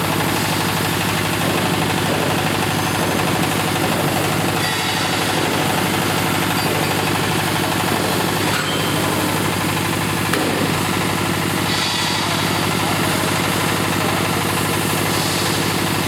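A GY-200-1A engineering drilling rig running steadily under power, its engine making a rapid, even knocking beat. A couple of faint clicks come through about halfway in.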